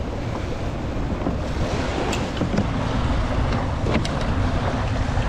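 Wind noise on the microphone over small waves washing up on a sandy beach, with a couple of light clicks about two and four seconds in as a fishing rod is handled on a kayak.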